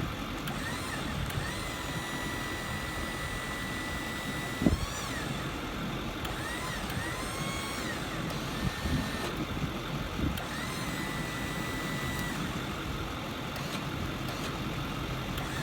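Truck-mounted Liftmore crane working through its functions: a high motor whine rises, holds and falls several times as each movement starts and stops, with a sharp clunk about five seconds in. Under it the truck's 6.4 Power Stroke diesel idles steadily.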